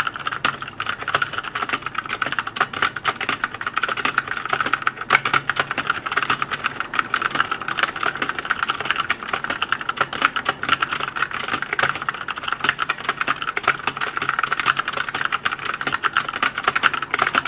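Fast continuous typing on a compact mechanical keyboard with Outemu Brown tactile switches (Drevo Calibur V2 TE), a dense stream of key clicks and clacks.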